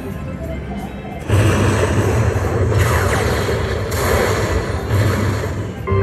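Aristocrat Lightning Link slot machine's thunder-and-lightning sound effect: a sudden loud crackling boom about a second in that rumbles on for several seconds, announcing the free-spin bonus win. Electronic slot-machine jingle notes come just before it.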